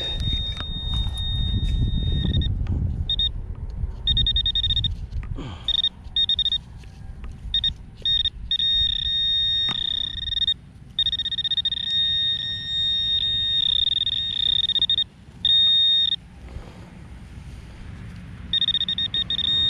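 Garrett Pro-Pointer pinpointer sounding its alert: a high steady tone that switches on and off in stretches of varying length, sometimes pulsing quickly, as the probe is worked around the hole over a buried target, a square pull tab. Hands rustle through soil and grass in the first few seconds.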